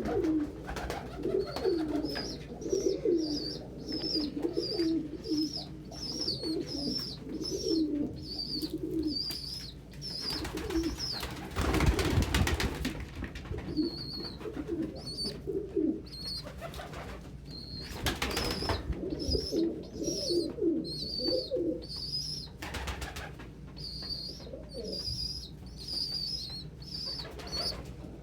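Pigeons cooing, many low warbling coos overlapping and coming and going, over a run of short high peeps. Two louder bursts of rustling noise break in, one about halfway through and one a few seconds later.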